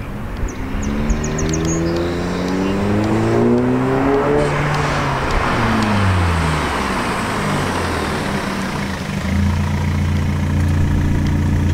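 Audi A4 B8 with its muffler and middle resonator deleted, driving up to and alongside the camera. The exhaust note climbs in pitch as the car accelerates over the first few seconds, drops as the throttle comes off around the middle, then settles into a steady low drone as the car rolls up close.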